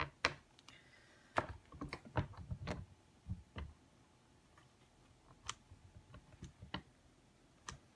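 Scattered light clicks and taps of hands working a Stamparatus stamping platform, pressing its clear hinged stamp plate down onto the card stock. Several come close together between about one and four seconds in, and a few more follow singly.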